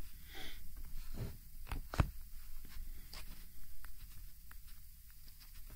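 Stylus tapping and sliding on a Nokia N900's resistive touchscreen, with scattered light clicks, a short scrape near the start and a louder knock about two seconds in.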